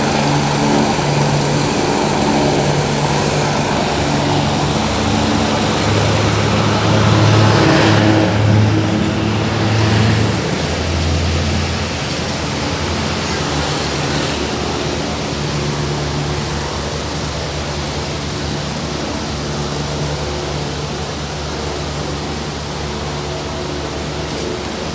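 Road traffic passing on a busy highway, with one vehicle loudest about seven to ten seconds in and dropping in pitch as it goes by, over a steady low engine hum.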